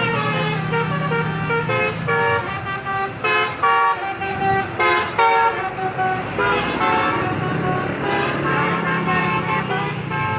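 Basuri musical air horn on a tour bus playing a telolet tune of short notes that step up and down in pitch. A low steady hum runs underneath at the start and again near the end.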